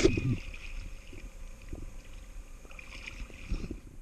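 Underwater sound of a diver at work on a yacht's propeller. A loud rush of exhaled regulator bubbles at the start and again near the end, with scattered light knocks in between.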